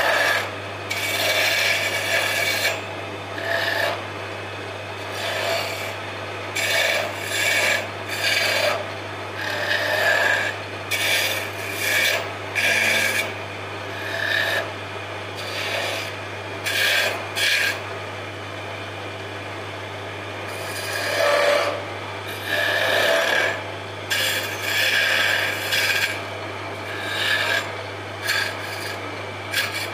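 Wood lathe running with a steady low hum while a hand-held turning chisel cuts into the spinning wooden spindle in many short scraping strokes, shaping a row of beads. The cutting pauses briefly about two-thirds of the way through.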